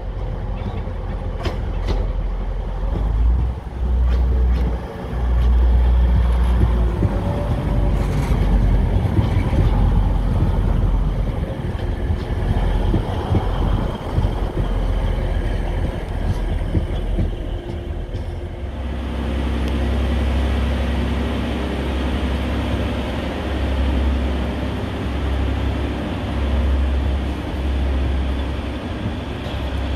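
A TransPennine Express Class 185 diesel multiple unit passing close by, its underfloor diesel engines rumbling, with a few clicks from the wheels in the first seconds. About two-thirds of the way through the sound changes abruptly to a steadier diesel engine rumble from a Class 185 standing at the platform.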